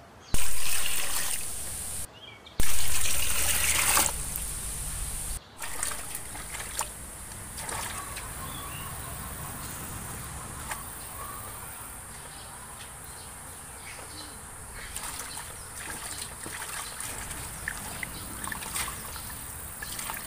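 Water from a tap pouring onto pumpkin shoots in a stainless steel basin, in two loud bursts within the first four seconds, each cut off abruptly. After that, a much quieter outdoor background with scattered small clicks from the vegetables being handled.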